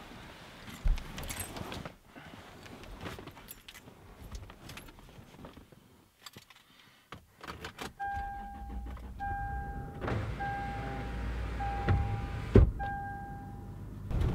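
Bedding rustling and small knocks as a person climbs forward through the cabin of a 4th-gen Toyota 4Runner. About halfway through, a low engine rumble sets in and a dashboard warning chime beeps five times at even intervals, with a sharp click near the end.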